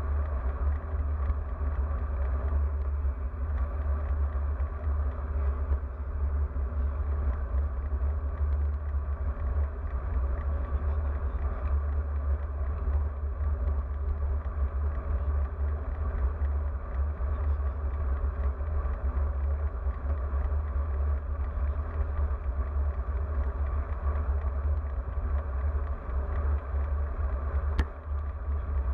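Steady low rumble of wind and road noise on the microphone of an action camera riding on a moving road bike, with one sharp click near the end.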